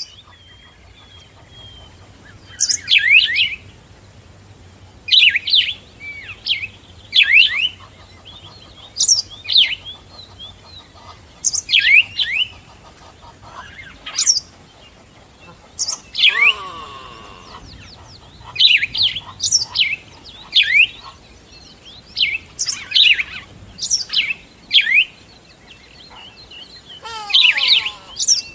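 Songbirds chirping: short, bright calls that sweep down in pitch, repeated every second or two, with a lower falling call about halfway through and again near the end.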